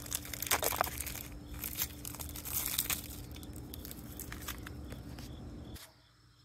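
Plastic shrink-wrap crinkling and tearing as it is peeled off a compressed coconut-fibre substrate brick, a run of quick crackles and rustling that cuts off suddenly near the end.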